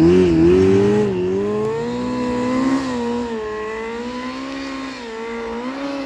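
A vehicle engine revving hard under load as it climbs a steep hill, its pitch rising and falling as the throttle is worked, slowly getting fainter.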